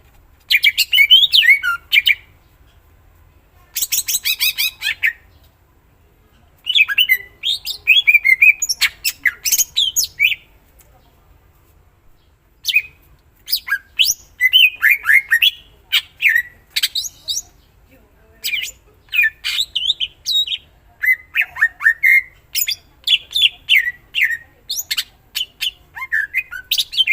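Greater green leafbird (cucak ijo) singing loud, rapid chattering and whistled phrases mixed with songs it mimics from other birds. The phrases come in bursts with pauses of one to two seconds at first, then follow close together through the second half.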